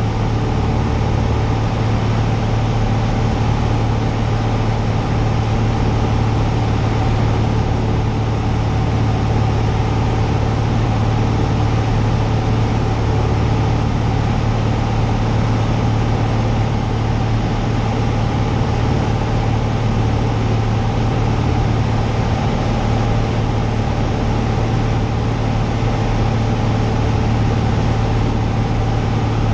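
Cessna 172's piston engine and propeller heard from inside the cabin in level flight: a loud, steady low drone that holds unchanged throughout.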